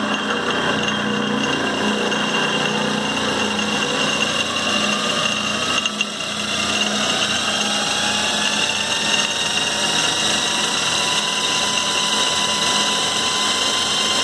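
Clausing 5914 metal lathe running noisily under power with its clutch engaged, the variable speed drive's belts and pulleys and the spindle drive turning. From about halfway through, its whine rises steadily in pitch.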